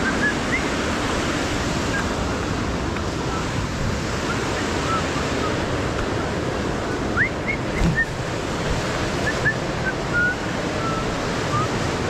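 A river's rapids rushing steadily, with a few short high chirps scattered over it, most of them in the second half.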